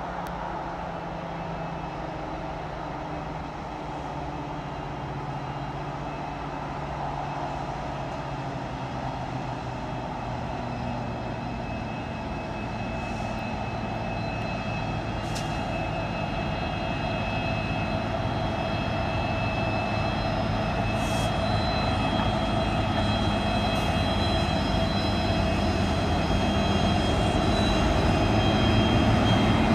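Loaded coal train headed by several 90 class diesel-electric locomotives approaching, engines running with a steady drone that grows steadily louder as it nears. Thin, steady high-pitched tones join in from about halfway.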